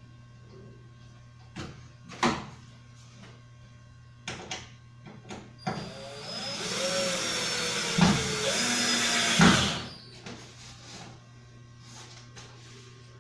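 A small electric power tool runs for about four seconds in the middle, its whine shifting in pitch as it works, with two sharp knocks near the end of the run. Scattered clicks and knocks of workshop handling come before and after.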